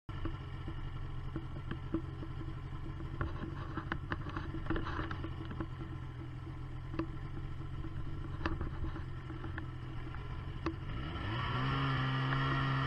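Snowmobile engine idling with a few scattered clicks and knocks, then rising in pitch as the throttle opens and the sled pulls away about eleven seconds in. Heard through a waterproof camera housing.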